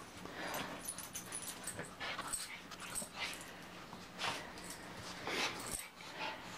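Two small dogs, a Maltese-poodle mix and a Shih-Tzu-Pekingese mix, scuffling in a padded dog bed: a string of short, faint rustles.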